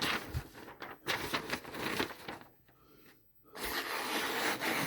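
Freshly sharpened Henckels kitchen knife slicing through paper in a sharpness test: three hissing, papery strokes, the last one longer.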